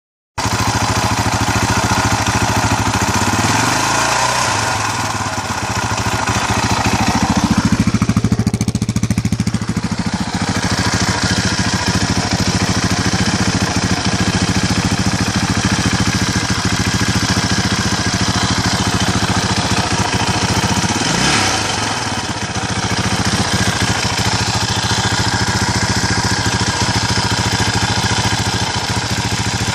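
KTM LC4 single-cylinder four-stroke motorcycle engine idling with rapid, even firing pulses. Loudness swells briefly about eight seconds in.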